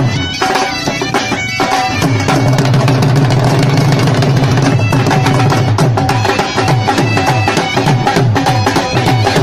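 Traditional dance music from a dhol drum beating a steady rhythm under a loud, reedy wind instrument playing the melody.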